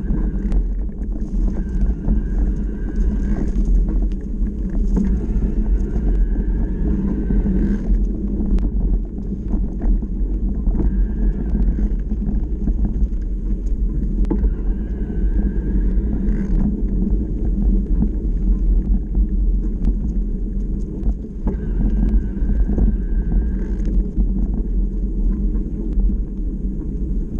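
Electric mountain bike riding along a dirt trail: a steady low rumble of tyre and wind noise on the bike-mounted camera's microphone, with small rattles from bumps and a faint whine that comes and goes.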